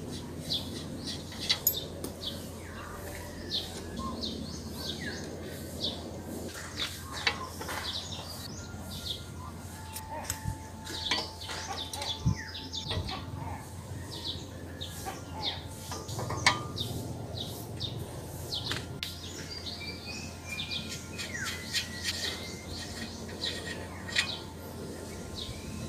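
Small birds chirping again and again, with a few sharp clicks and knocks as bicycle bottom-bracket parts are handled and threaded into the frame.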